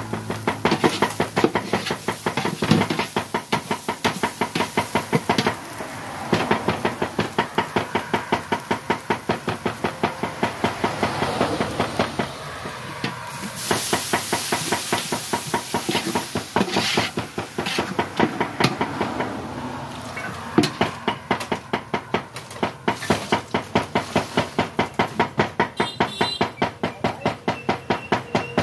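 Metal spatula scraping and knocking against a large aluminium cooking pot in fast, steady strokes, about four a second, with a few short pauses. About halfway through, liquid poured into the hot pot brings a brief hiss.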